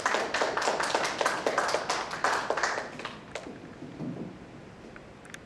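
Small audience applauding, the clapping thinning out and dying away about three seconds in.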